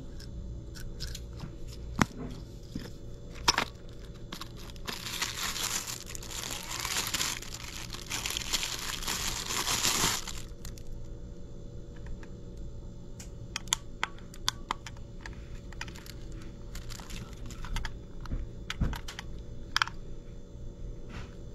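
Thin clear plastic bag crinkling for about five seconds in the first half as it is opened and pulled off a blood glucose meter. Scattered sharp clicks and taps of the meter's plastic casing being handled come before and after it.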